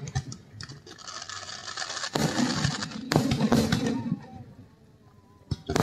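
Fireworks going off: scattered crackles and two louder bangs about two and three seconds in, each followed by a crackling tail, then a short lull before another crack near the end.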